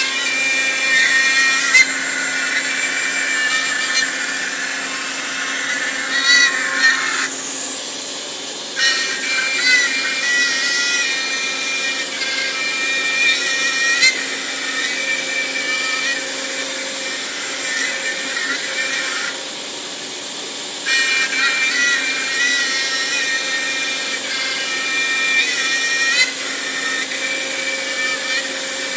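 CNC router running a 3D carving pass: the spindle runs steadily with the bit cutting into a wooden board, while the drive motors whine in several tones that shift in pitch as the axes move. The whine drops out briefly twice, around eight and twenty seconds in.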